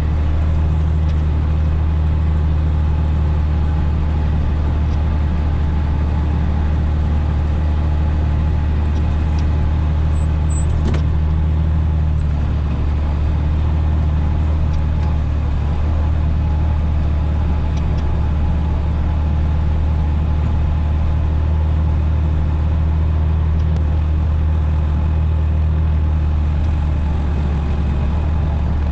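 Tractor's diesel engine running at a steady speed, a deep, even drone that holds unchanged throughout.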